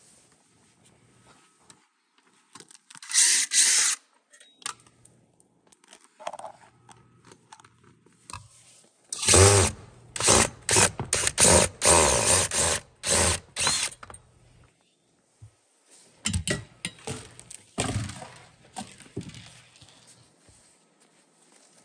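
Cordless drill driving screws in short bursts, once about three seconds in and then in a run of pulses from about nine to fourteen seconds, fastening the massage chair's skirt bracket. Knocks and clicks of the panel being handled follow.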